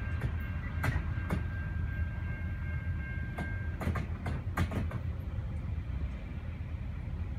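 Freight train rolling away: a steady low rumble of the wheels on the rails with scattered clicks from wheels over rail joints. A thin high steady tone rides over it and stops about four seconds in.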